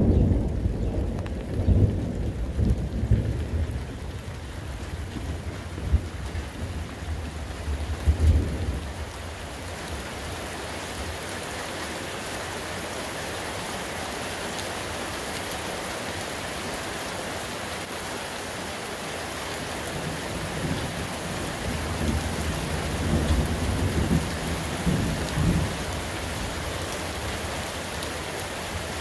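Rolling thunder rumbles through the first nine seconds or so. Steady rain hiss then sets in and keeps going, with another roll of thunder under the rain about two-thirds of the way through.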